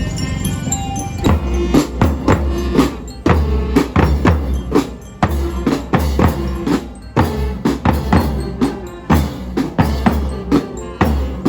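Drum-heavy music with a steady beat: bass drum and snare-like strokes over a heavy bass, with a few short pitched notes.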